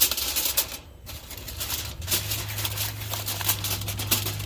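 Aluminium foil crinkling and crackling as it is peeled back off a container. A low steady hum starts about two seconds in.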